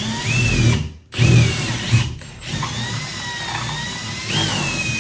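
Cordless drill boring a half-inch hole into drywall for a toggle anchor, its motor whine rising and falling in pitch. It stops briefly about a second in, then runs again.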